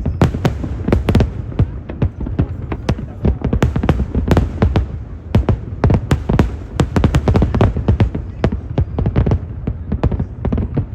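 Fireworks display: a dense, rapid run of sharp bangs and crackles, several a second, over a continuous low rumble from the bursts.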